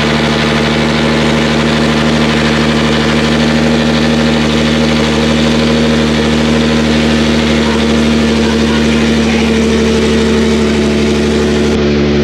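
Nissan 370Z's 3.7-litre V6 idling steadily just after its first cold start through newly fitted ISR long-tube headers and a Tomei exhaust, very loud.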